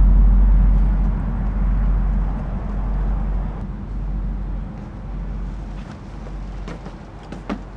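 A deep cinematic boom that hits suddenly after a short falling sweep, then rumbles on and slowly fades, with a couple of sharp clicks near the end.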